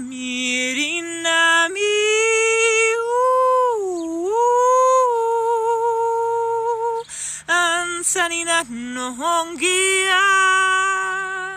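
A woman singing unaccompanied, a wordless light-language song of celebration in long held notes. One note dips down and back up about four seconds in, and a run of shorter notes follows in the last few seconds.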